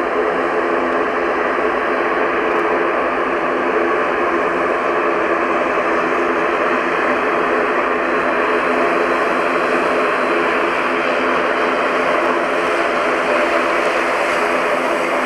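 An ATR 72-500's twin Pratt & Whitney PW127 turboprop engines and spinning propellers running steadily at taxi power. A loud even hum with several held tones over a hissing rush.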